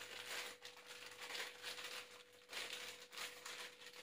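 Crinkling of a plastic Indomie instant-noodle packet being handled and opened, in a string of short rustles.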